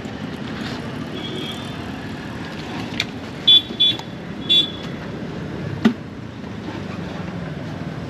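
Steady road-traffic noise with a few short, high-pitched horn toots about three and a half to four and a half seconds in, the loudest sounds here, and a single sharp knock near six seconds.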